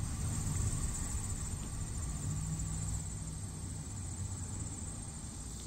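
Steady high trilling of insects, with a low rumble underneath.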